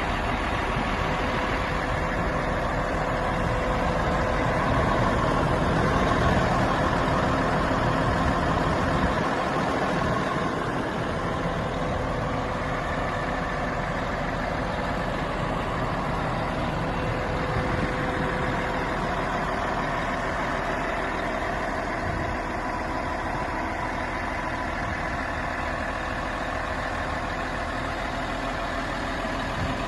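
Cat 143H motor grader's diesel engine running steadily at idle, swelling slightly a few seconds in.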